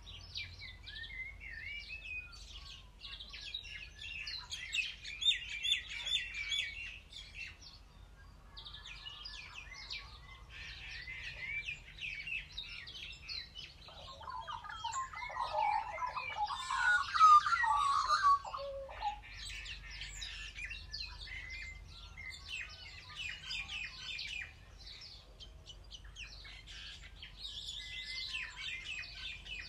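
A chorus of small birds chirping and singing, with a louder, lower-pitched run of calls around the middle.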